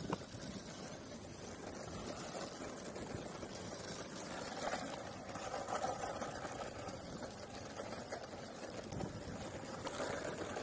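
Longboard wheels rolling over an asphalt path, making a steady rolling noise.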